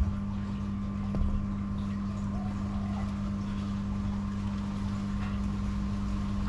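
A steady low mechanical hum, with beer being poured from a bottle into a stemmed glass goblet.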